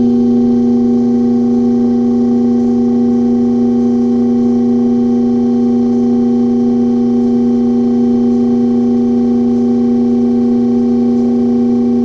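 Rope pull-test rig running with a steady, unchanging hum as it slowly loads a spliced lanyard rope wrapped around a 9-inch cylinder.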